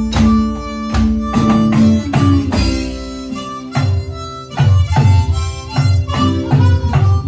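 Improvised blues: a harmonica holds one note for about two seconds, then plays shorter changing notes, over acoustic guitar and an electronic drum kit keeping a steady beat.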